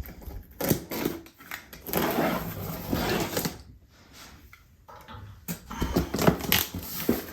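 Rummaging through chair packaging: rustling of plastic and cardboard with clicks and clatter of small parts being handled, in bursts with short quiet gaps.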